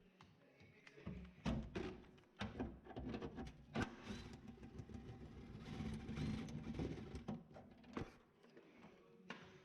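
Irregular knocks and clanks of hand tools and metal car parts being handled, with a busier stretch of scraping and rattling in the middle.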